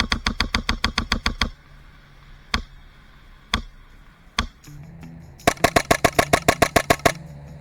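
HPA airsoft rifle firing: a rapid full-auto burst of about a dozen shots, three single shots about a second apart, then a second rapid burst near the end, at about eight or nine shots a second.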